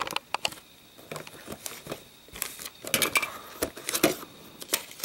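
Clear plastic packaging of pistol magazines being handled, crinkling and rustling in short bursts with scattered light clicks and taps.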